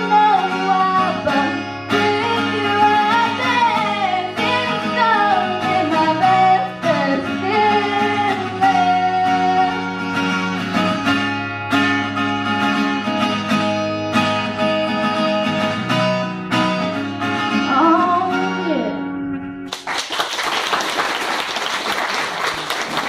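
A girl singing a song to her own strummed acoustic guitar, the final notes sliding down; about twenty seconds in the music stops and gives way to applause.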